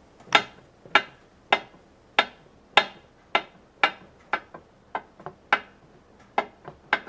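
A square rocking back and forth across a low spot in a tabletop, clicking sharply each time it tips, about twice a second at first and more unevenly toward the end. The rocking is the sign that the table is not flat: it is dished around its grooves.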